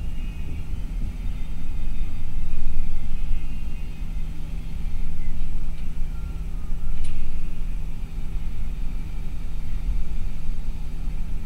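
Steady low rumble of a bus cruising along a highway, engine drone and road noise as heard inside the cabin, with a low steady hum. A single short click comes about seven seconds in.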